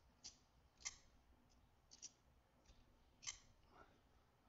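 Light clicks and snaps of a Knafs Lander 2 folding knife's clutch-lock blade being worked open and closed by hand to test its detent and deployment. There are about six short clicks at uneven intervals.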